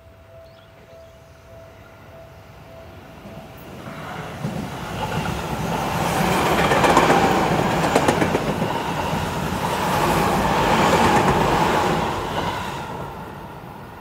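Level-crossing warning bell ringing as a pulsing tone, then a Seibu 20000 series electric train passing close by. The train's noise swells from about four seconds in, with wheels clicking over rail joints, and dies away near the end.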